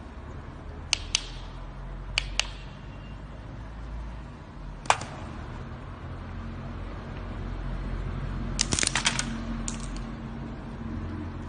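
Coconut crab's claw cracking walnut shells. A pair of sharp cracks comes about a second in and another about two seconds in, a single loud crack near five seconds, and a quick run of cracks and crunching near nine seconds, all over a low steady hum.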